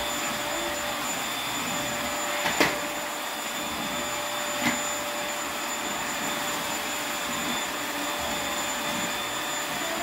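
Corded electric stick vacuum cleaner running steadily with a high motor whine as it sucks up cereal. Two sharp clicks stand out, the louder one about two and a half seconds in and another just under five seconds in.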